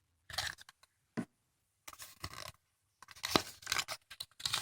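Paper and plastic wrapping from a surprise egg being handled and unfolded, in several short bursts of crinkling and tearing that grow busier near the end.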